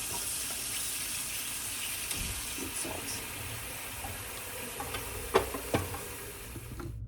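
Kitchen tap running steadily, filling a pot with water to boil, with two sharp knocks about five and a half seconds in. The running water cuts off suddenly near the end.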